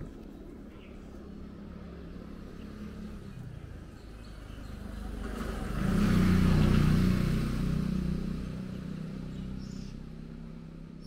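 A motor vehicle drives past: its engine hum grows louder from about four seconds in, is loudest around six to seven seconds, then fades away.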